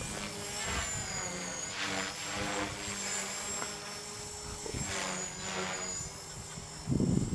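Electric 450-size RC helicopter (Copter X, a T-Rex 450 clone) in flight: a steady high motor and rotor whine over a low hum, with pitch sweeping up and down twice as it manoeuvres. A brief louder rush near the end.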